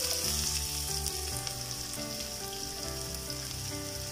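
Freshly added chopped onion sizzling as it fries in hot oil with tempered mustard seeds, cumin and dried red chillies, a steady hiss that eases a little over the few seconds.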